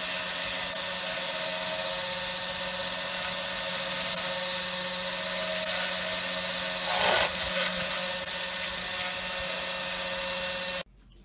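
3018 Pro desktop CNC router's spindle running a V-bit through oak, a steady high machine whine with the rasp of the cut. It is briefly louder about seven seconds in and cuts off suddenly near the end.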